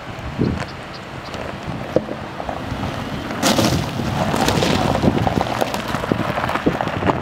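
Subaru Forester driving off a gravel berm and past, its tyres crunching and popping loose stones, getting louder about three and a half seconds in as it passes close.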